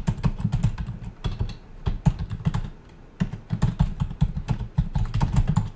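Typing on a computer keyboard: a quick, uneven run of key clicks, with a brief lull about three seconds in.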